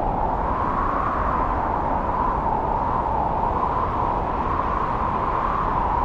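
Strong snowstorm wind blowing through forest trees: a steady rush with a hollow note that wavers slowly up and down in pitch.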